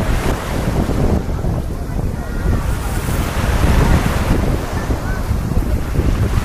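Small waves washing onto a sandy shore under heavy wind buffeting on the microphone, which is the loudest thing: a dense, gusty rumble. The surf swells briefly a little past the middle.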